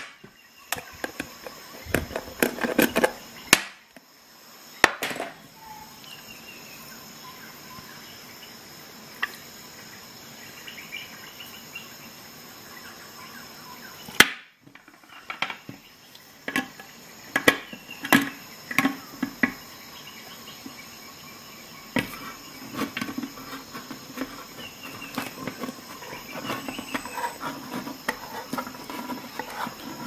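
Multi-tools and a tin can being handled on a desk: scattered knocks and clicks. From about 22 s in, a dense run of small metal clicks as a multi-tool's hook can opener is worked on the rim of a tin can.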